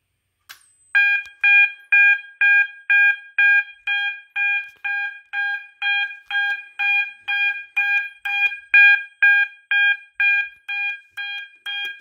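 Fire alarm horns sounding in march time, about two pulses a second (120 beats per minute), starting about a second in, just after a click. The panel is coding the horns because a smoke detector has gone into alarm after being tested with canned smoke.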